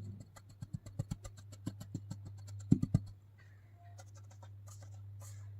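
Kinetic sand handled close to the microphone: a quick run of crisp clicks and taps for about three seconds, the loudest just before the three-second mark, then softer scraping, over a steady low hum.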